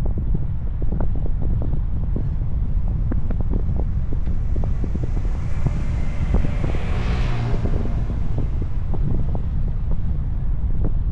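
Wind buffeting the microphone of a moving car, a heavy gusty rumble with crackles. A hissing swell with a steady tone rises and fades midway, peaking about seven seconds in.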